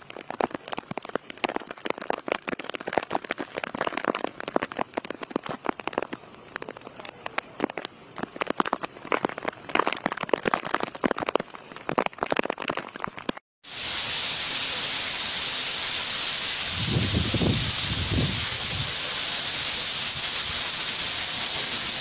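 Heavy rain. First a dense, irregular crackle of drops striking a hard surface close by. After a cut about halfway through comes a steady, loud hiss of downpour, with two low rumbles a little after that.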